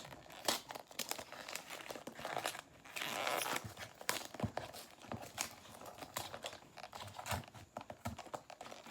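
Gift wrapping paper being crinkled and torn off a present by hand, a rapid run of crackles and rustles with a denser stretch of rustling about three seconds in.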